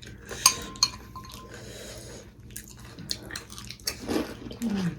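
Two sharp clinks of a utensil against a dish about half a second in, each with a brief ring, followed by scattered eating noises and a short vocal sound near the end.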